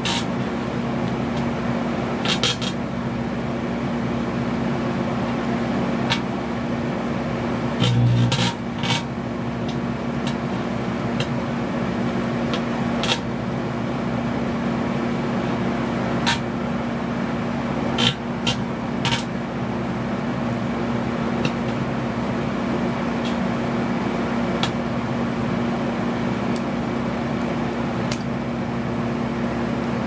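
Microwave oven running with a steady hum, with sharp crackling snaps of electrical arcing from a Samsung 850 Evo SSD burning on the turntable. The snaps come in scattered clusters, and there is a low thump about eight seconds in.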